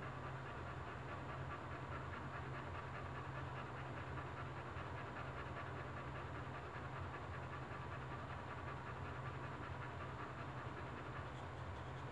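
A whelping boxer bitch panting rapidly and steadily through labour, over a steady low hum.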